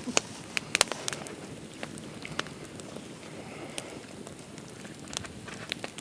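Log campfire crackling, with sharp pops scattered through and a quick cluster of them about a second in, over a steady hiss.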